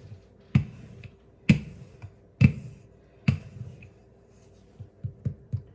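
Rolling pin knocking on the counter as pie dough is rolled out: sharp knocks about once a second, then quicker, lighter taps near the end.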